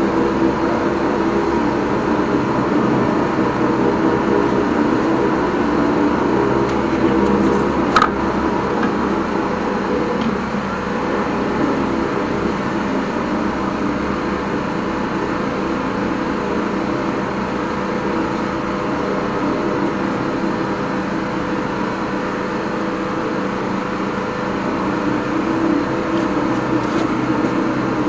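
A high-pressure drain jetter runs steadily, driving water through its hose and turbo drill nozzle to clear a blocked house rainwater pipe. There is a single sharp click about eight seconds in.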